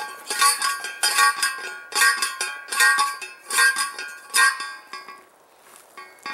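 Manual post driver striking a steel fence post sleeve, driving it into hard ground: about six ringing metal-on-metal clangs a little under a second apart, stopping about four and a half seconds in.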